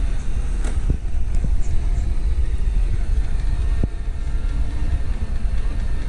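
iRobot Roomba robot vacuum running on carpet: a steady low hum with a couple of faint ticks, which the owner calls pretty quiet.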